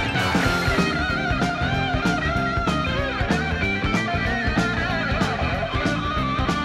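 Background rock music: a guitar melody with bending notes over a steady drum beat.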